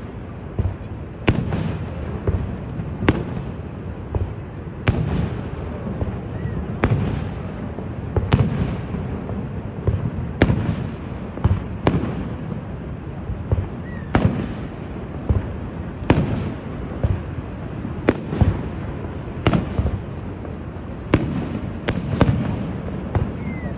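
Fireworks going off, a sharp bang about every one and a half to two seconds, some followed by a short crackle, over a steady low rumble.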